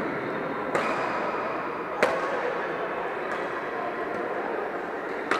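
Badminton rackets striking a shuttlecock: three sharp cracks, about 0.8 s, 2 s and 5.3 s in, the one about two seconds in the loudest, over the steady background noise of a busy sports hall.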